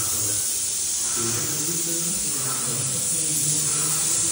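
Airless paint spray gun spraying paint onto a ceiling: a steady hiss.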